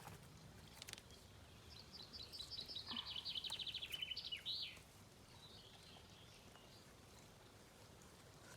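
A small songbird sings one song about two seconds in: a fast trill of many short high notes, dropping a little in pitch, ending with a short separate note. A few faint clicks and a low steady outdoor background surround it.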